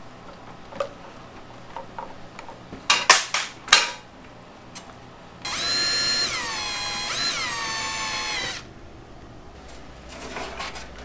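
A few sharp knocks, then a cordless drill/driver runs for about three seconds on a carburetor's screws, its whine dipping in pitch twice as it takes load.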